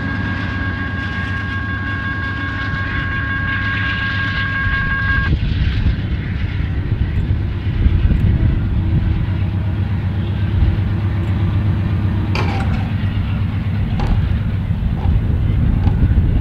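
Long freight train rolling past, its wheels clattering steadily over the rails with a deep rumble. A steady high two-note tone is held and cuts off about five seconds in, and there are a couple of sharp metallic clicks later on.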